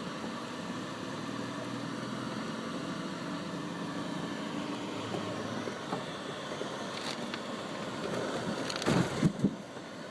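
Car cabin noise while driving on snowy roads: steady engine hum and tyre rumble, with a short cluster of louder knocks and rumbling about nine seconds in.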